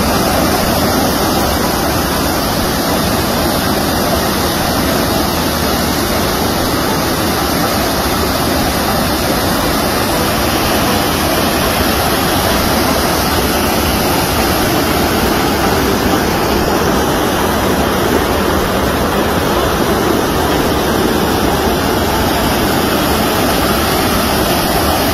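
Loud, steady rush of a swollen river pouring over a concrete weir into churning whitewater.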